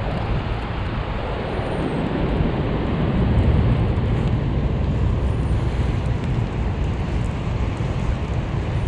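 Wind buffeting the GoPro's microphone, a steady low rumble, over the rush of a wide, fast-flowing river.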